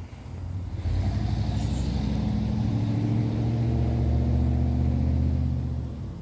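A car engine running steadily. It comes up about a second in, holds for about five seconds, and dies away near the end.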